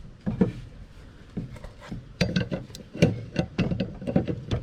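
Irregular clicks and knocks of a wrench and a wooden board being worked against a zero-turn mower's blade while the blade is wedged for tightening. A few scattered knocks at first, then quicker clicking from about halfway through.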